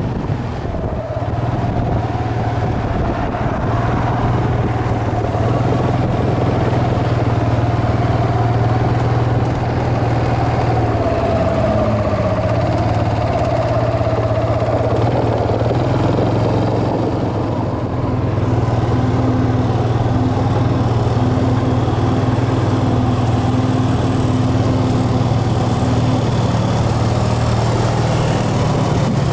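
ATV engine running at a steady speed, a low drone, with a higher whine that wavers up and down through the first half.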